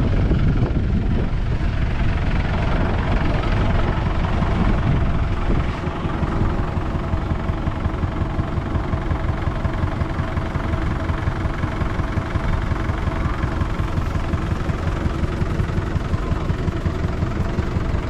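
Steady low rumble of a running vehicle engine, dropping a little about six seconds in.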